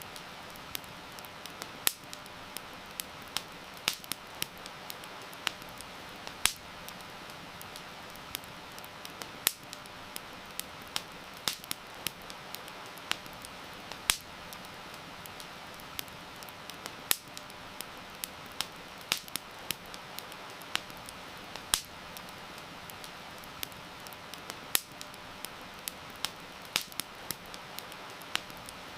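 Campfire crackling, with sharp irregular pops several times a second, some much louder than the rest, over a steady hiss of falling rain.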